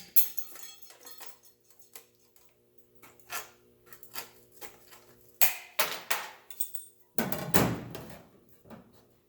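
Tin snips cutting through heavy sheet steel: a run of sharp snips and clicks, then a louder scraping clatter lasting about two seconds near the end.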